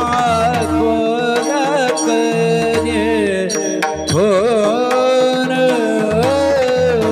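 Devotional bhajan: a male voice sings a long, ornamented line with slides and vibrato over steady held accompaniment notes. A mridang plays strokes in the background.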